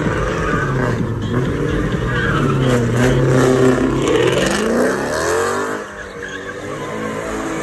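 Dodge Charger's engine revving hard while the car spins donuts, its tires spinning on the pavement. The revs stay high, climb about four seconds in, drop briefly near six seconds, then rise again.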